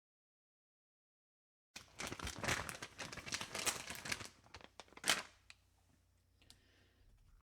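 Crinkling and rustling handling noise that starts suddenly about two seconds in and runs for a couple of seconds, then a single sharp click, then faint rustling.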